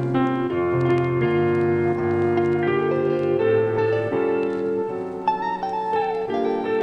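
Background music led by piano and plucked strings, a gentle melody with notes changing every half second or so.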